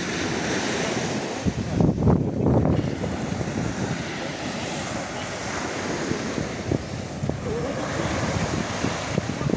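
Small waves breaking and washing up on a sandy beach, with wind rumbling on the microphone; the sound is loudest about two seconds in.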